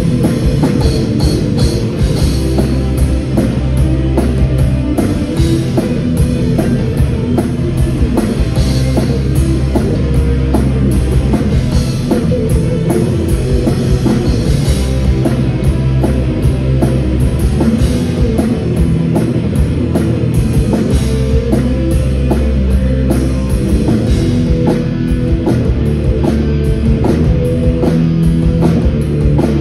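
Live rock band playing an 80s hair metal cover, loud: electric guitars over a steady drum kit beat.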